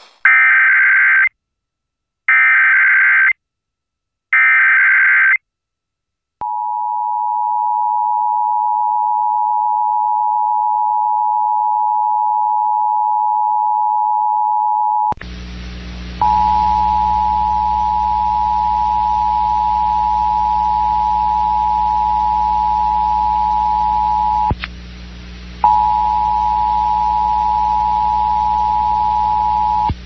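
Emergency Alert System monthly test tones: three harsh, buzzy one-second bursts of the SAME digital header, then the steady two-tone EAS attention signal. About halfway through, the tone carries on over a bed of hiss and hum, broken by a click and a short gap near the end.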